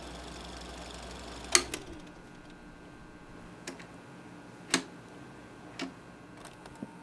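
A low machine hum cuts off with a loud click about a second and a half in, followed by several sharp, irregular clicks of a small metal key being turned in a switch panel.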